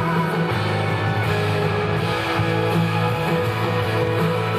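Yosakoi dance music with guitar, loud and steady, with sustained notes over a steady bass.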